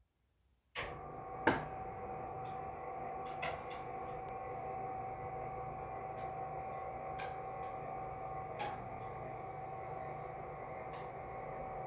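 Electric motor of a concealed motorised roof-light blind starting about a second in and running with a steady hum as the blind travels across the skylight, with occasional light clicks.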